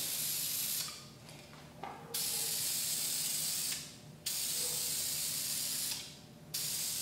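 Aerosol can of VHT flat black roll bar paint spraying in a solid stream, four hissing passes of about a second and a half each with short breaks between, as heavier coats go on.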